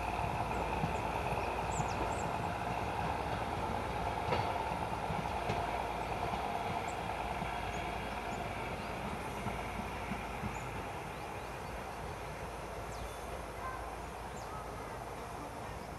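ZSSK class 811 diesel railcar pulling away, its engine and running gear fading steadily as it moves off.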